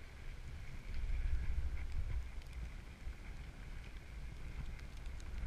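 Wind buffeting the microphone on a moving chairlift: a steady low rumble with a few faint clicks.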